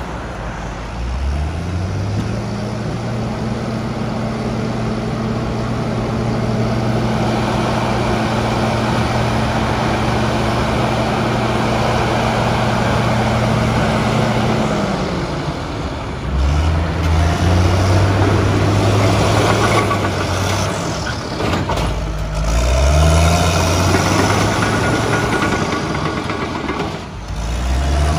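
Caterpillar D6N crawler dozer's diesel engine being revved: it climbs from idle about a second in and holds at high speed for over ten seconds, then drops back and is run up and down twice more.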